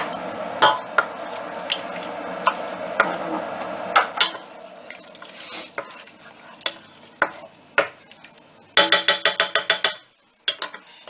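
Wooden spatula stirring and scraping onion and tomato in a stainless steel pot, knocking against the pot now and then, with a quick run of ringing taps on the metal near the end. A steady hum from the kitchen extractor hood runs under the first few seconds and then fades away.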